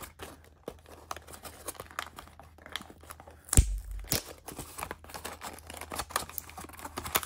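Clear plastic shrink-wrap being torn and crinkled off a small cardboard toy box, with rapid irregular crackles and one loud thump about halfway through.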